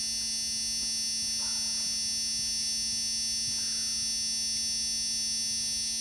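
Steady electrical hum with a high-pitched whine over it. Faint rustles about one and a half and three and a half seconds in.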